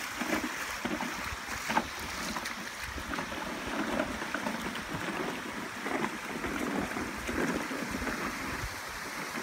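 Shallow creek water rushing over a stony riffle in a steady wash, with a few brief splashes from wading in it. Some wind noise on the microphone.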